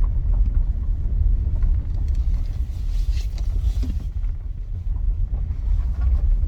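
Vehicle driving slowly onto a truck weigh scale, a steady low rumble of engine and road noise heard from inside the cabin.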